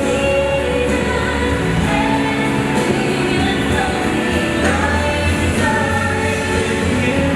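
Music with singing: a song with held notes and a steady vocal line.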